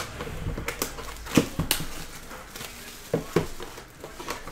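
A shrink-wrapped cardboard trading-card box being handled and turned over on a tabletop: about six light knocks and taps, spaced irregularly.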